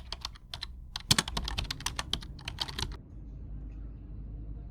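Rapid, irregular clicking like typing on a keyboard, stopping about three seconds in and leaving a low steady hum.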